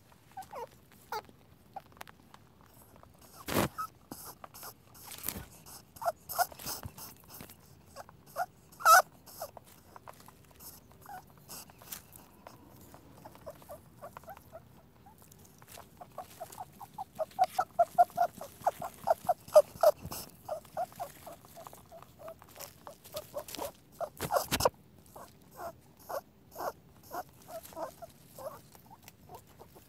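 Rabbit making short, sharp clicking squeaks: scattered at first, then quick runs of several a second in the middle and again near the end, with a few louder snaps among them.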